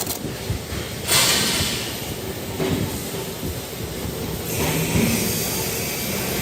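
Workshop machinery noise: a steady low rumble with a hissing surge about a second in and another from about four and a half seconds.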